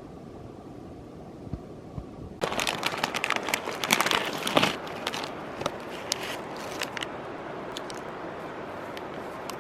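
Plastic food packaging crinkling and crackling as it is handled. It starts abruptly a couple of seconds in and is loudest for the next few seconds, then carries on more lightly with scattered crackles over a steady hiss.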